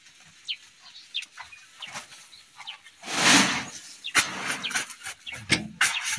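A wheelbarrow load of soil tipped onto a heap, with a loud rushing slide of earth about three seconds in. Sharp scrapes and knocks of a shovel blade working the pile follow.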